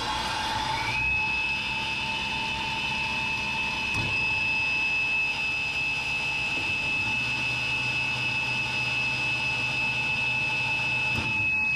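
Powermatic sliding table saw's main blade motor starting and running up to speed, settling into a steady high whine over a low hum. About four seconds in there is a click as the star-delta switch is turned from Y to delta, and about seven seconds in a deeper hum joins as the scoring blade motor comes on.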